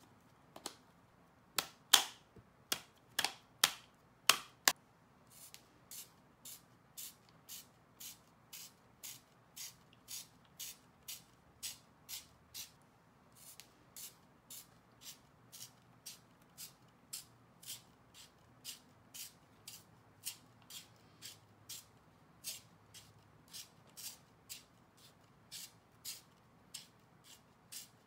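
BillKing CACO tip tool clicking as it is twisted around a cue shaft, its side blade shaving a new leather cue tip down to the shaft. A few louder clicks in the first few seconds give way to a steady run of about two clicks a second.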